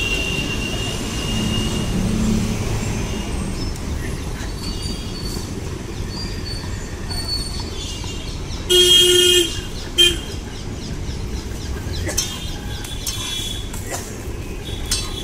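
Street traffic noise with a vehicle horn honking about nine seconds in: one long toot, then a short one about a second later.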